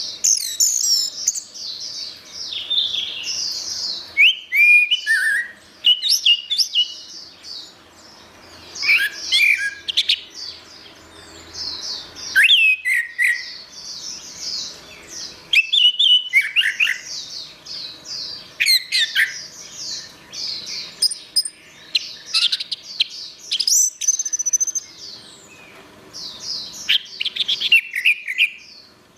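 Orange-headed thrush singing a long, varied song of quick warbled phrases mixed with sharp falling whistles, with only brief pauses between phrases.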